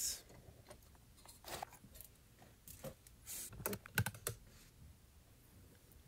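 Light, scattered clicks and taps of a small metal lock cylinder being handled, as a MIWA U9 lever lock is taken out of a bench vise and set down on a tray. The clicks are busiest a little past halfway.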